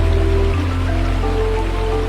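Soft background music of long held notes over a steady low bass, changing chord about half a second in.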